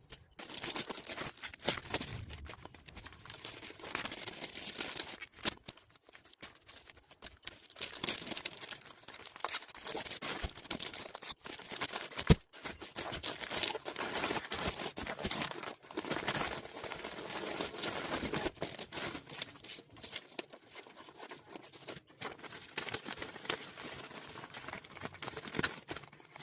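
Packaging being handled to pack a clothing order: irregular crinkling and rustling with tearing sounds, and one sharp click about twelve seconds in.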